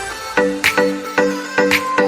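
Background music with a steady beat: short repeated chords and a sharp percussive hit about twice a second.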